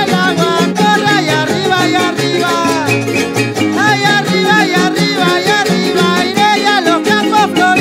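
Latin-style song, salsa-like, with a singer carrying the melody over a steady instrumental backing.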